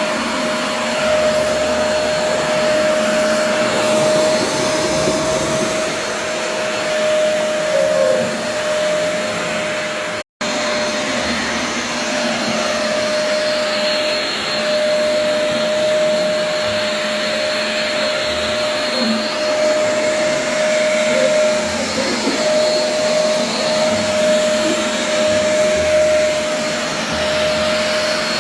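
A loud motor-driven machine running steadily: a constant whine over a rushing noise, broken by a momentary dropout about ten seconds in.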